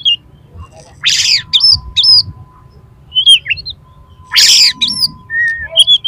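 Oriental magpie-robin (kacer) giving agitated fighting calls: two loud harsh calls, about a second in and again past four seconds, between short clear whistled notes.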